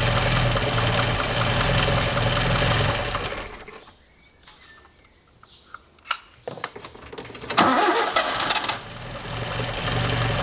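Alfa Romeo Giulia twin-cam four-cylinder engine running, then stalling about three and a half seconds in; after a few clicks it is cranked and restarted near the end and runs again. The stall comes from the ignition intermittently giving no spark.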